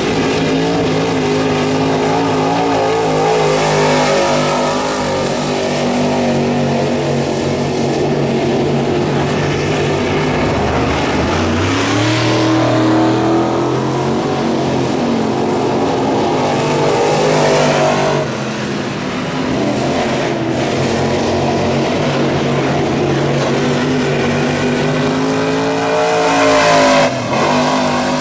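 Crate late model dirt race car's V8 engine running hard on a lap, its pitch climbing about ten seconds in, falling back a little past halfway, then climbing again near the end with a brief dip just before it ends.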